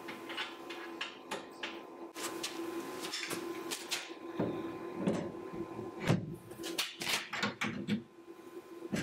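Metal bars and hinges of an aluminum balanced-arm mount being handled and swung: a string of irregular clicks, knocks and rattles, over a faint steady hum.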